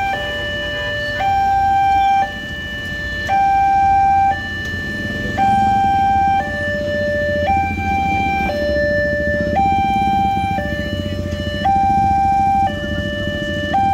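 Railway level-crossing warning alarm sounding a two-tone signal, a higher and a lower tone alternating about once a second, as the barriers are down for an approaching rail vehicle. A low engine rumble from motorcycles waiting at the barrier builds under it from the middle on.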